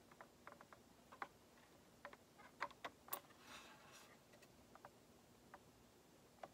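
Near silence with faint, scattered small clicks and taps, loudest in a quick cluster about two and a half to three seconds in and followed by a brief soft hiss: a soldering iron tip working at solder joints on a circuit board.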